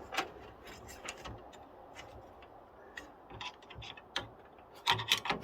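Scattered light clicks and ticks of a CPU fan and heatsink being worked loose from a desktop computer's motherboard, with a quick run of clicks near the end.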